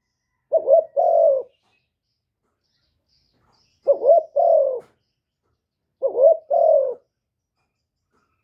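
Spotted dove cooing three times, a call every two to three seconds: each call is a couple of quick rising notes followed by one longer coo.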